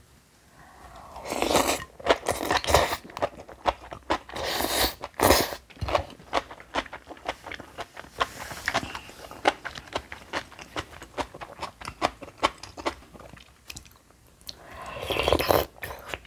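A person chewing crunchy food close to the microphone, most likely bibimbap mixed with crisp seasoned aged cucumber (nogak). There are many sharp crunches and wet mouth clicks, with a few louder, longer crunching bursts.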